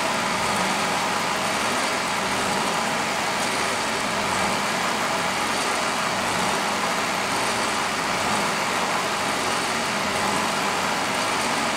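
Vertical milling machine running under power table feed, its end mill cutting a keyway along a threaded steel leadscrew: a steady, even machining noise.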